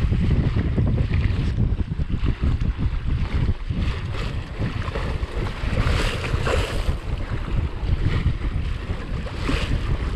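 Wind buffeting the microphone in a heavy low rumble, with water washing against a kayak's hull and a couple of brief louder swashes about six and nine seconds in.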